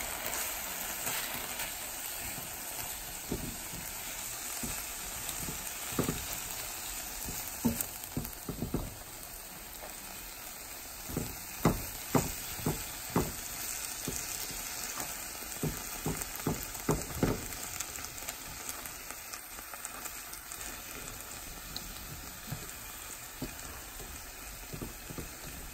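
Ground turkey, bell peppers and onions sizzling in a hot nonstick skillet while a silicone spatula stirs and breaks up the meat, with many short knocks and scrapes of the spatula against the pan, most of them in the middle stretch.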